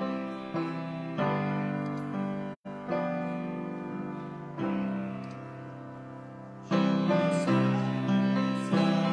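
Piano playing slow held chords as the introduction to a congregational song, each chord fading after it is struck and a new one coming every second or two, growing louder about two-thirds of the way through. The sound cuts out for an instant a little over two and a half seconds in.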